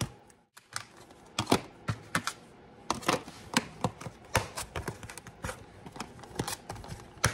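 Red plastic lids being pressed and snapped onto plastic food-storage tubs, giving an irregular run of sharp plastic clicks and knocks.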